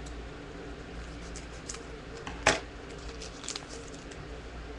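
Trading cards and a foil card-pack wrapper being handled, making light rustles and clicks, with one sharper crackle about two and a half seconds in. A steady low hum runs underneath.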